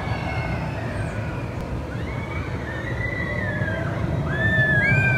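Roller coaster train running along its steel track: a steady low rumble with high drawn-out squealing tones over it, getting louder about four seconds in as the train comes closer.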